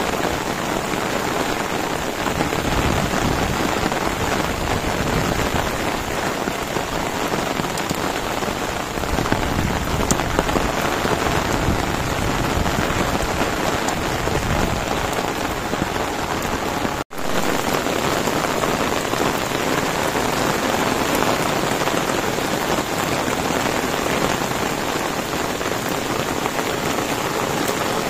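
Heavy rain falling steadily on rice paddies, grass and a wet path, a dense even hiss. It cuts out for an instant about two-thirds of the way through.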